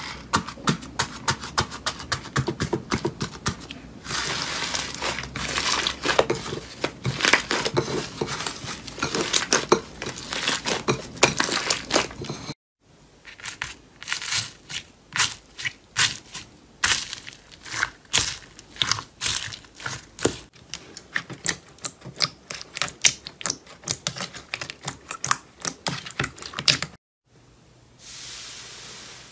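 Slime being squeezed and pressed by hands, giving fast crackling and popping clicks. The sound breaks off abruptly several times and changes in character, as one slime gives way to another.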